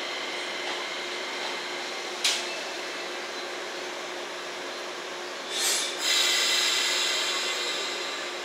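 A standing JR West 115 series electric train humming steadily with several fixed whining tones from its onboard equipment. There is a brief sharp hiss about two seconds in, and a louder hiss at about five and a half seconds, after which a brighter whine comes in and slowly fades.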